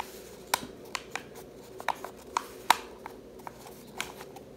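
A sheet of printed paper being rolled up into a tube by hand: irregular crisp paper ticks and rustles, about two a second, over a faint steady hum.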